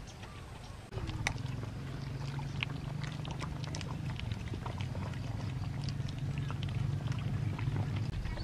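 Puppies eating fish scraps and bones from a woven basket: many small wet chewing and crunching clicks, over a low steady rumble that starts about a second in.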